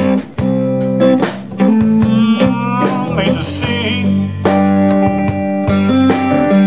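Live band playing a slow blues-rock song: electric guitar, bass guitar and drum kit, with a guitar fill between sung lines.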